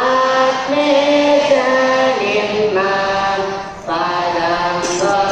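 A large group chanting a prayer in unison, holding long notes that step up and down in pitch, with a short pause for breath a little before four seconds in.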